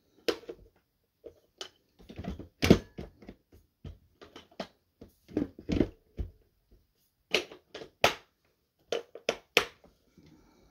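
Irregular sharp crunches and clacks, about fifteen spread unevenly, the loudest a little under three seconds in, with no vacuum motor running.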